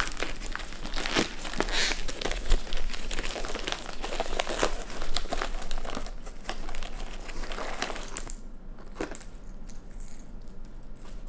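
A raccoon rummaging with its nose and paws inside a plastic Goldfish cracker bag, which crinkles and crackles with many small rustles. The crinkling dies down about eight seconds in, leaving only a few faint rustles.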